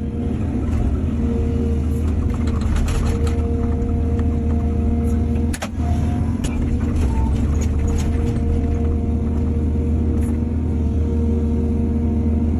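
Heavy diesel earthmoving machinery running steadily, with scattered clanks and knocks and one sharper knock about halfway through.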